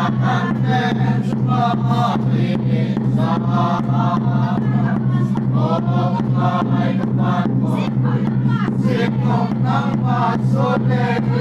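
A small congregation singing a hymn together, men's and women's voices holding drawn-out notes, over a steady low hum.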